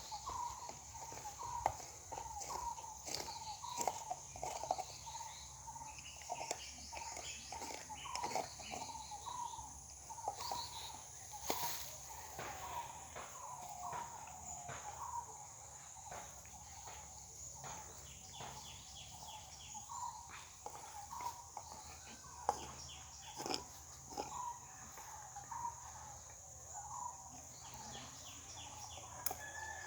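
Dog crunching and gnawing on a hard coconut shell: a run of irregular sharp cracks and crunches.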